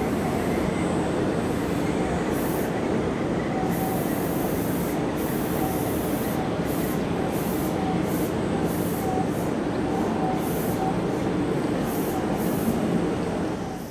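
Odakyu 3000 series electric train running on the line: a steady, even rumble of wheels on rail, with short bursts of high hiss on and off.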